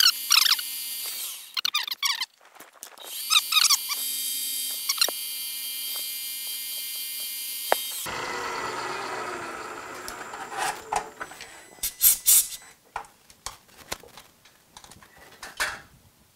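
Milling machine spindle drilling a small port hole into a wobbler steam engine cylinder block, with the bit squealing off and on over a steady high whine. About eight seconds in, the sound changes abruptly to a rougher rushing noise, followed by several sharp clicks and knocks.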